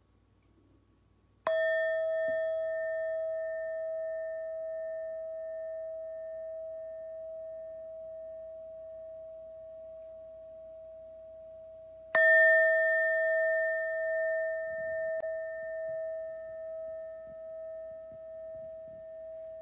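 Singing bowl struck twice, about ten seconds apart, each strike ringing on in one long, slowly fading tone that wavers in loudness.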